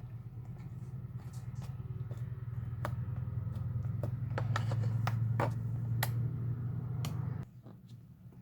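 Slime being squeezed and stretched by hand, giving a run of sharp little clicks and pops that come thickest a few seconds in. Under them runs a steady low hum that cuts off suddenly near the end.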